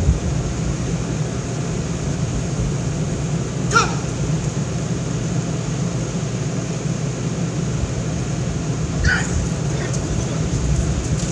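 Steady city-street background noise with a low rumble, broken twice by a brief high-pitched chirp or call, about four and nine seconds in.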